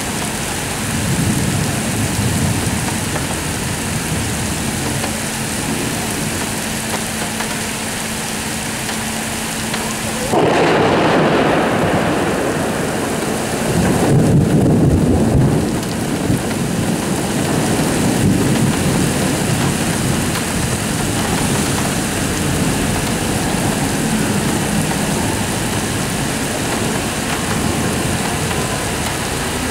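Heavy rain falling steadily through a thunderstorm, with thunder over it. There is a low rumble a second or two in, a sudden sharp clap about ten seconds in, and another long rumble a few seconds after that.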